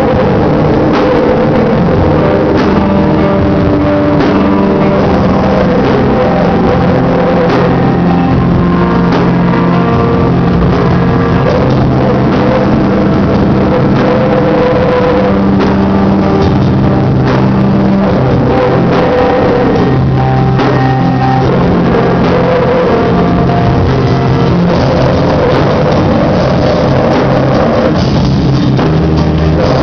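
Live rock band playing loud: electric guitars over a drum kit, played with a steady beat.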